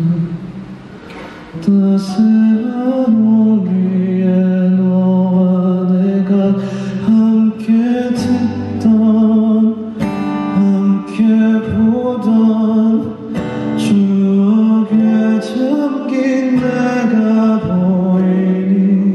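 Live acoustic pop song: a male voice singing long, held notes over plucked acoustic guitar, with light percussion hits.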